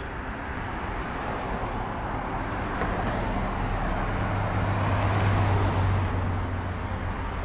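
Road traffic: cars driving past on a busy street, the noise swelling as one vehicle passes with a low engine hum about five to six seconds in, then easing off.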